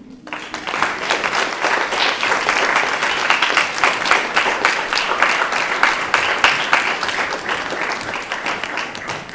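Audience applauding at the end of a live performance: the clapping breaks out right at the start, swells within the first second, holds steady, and begins to die away near the end.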